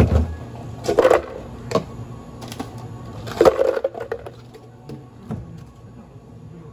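Ice cubes tipped from a cup into a plastic blender jug, clattering and rattling in several bursts, loudest about a second in and again about three and a half seconds in, over a steady low hum.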